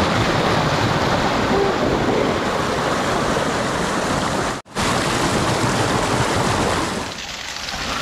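Water rushing and splashing steadily at a waterfall and its stream. It breaks off for an instant about four and a half seconds in and is a little quieter near the end.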